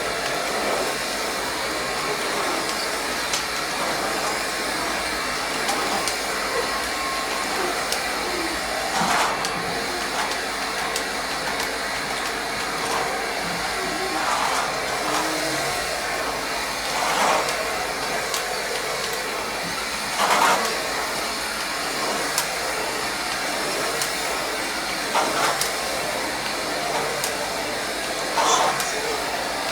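Vacuum cleaner running steadily, with a few brief louder swells as it is worked.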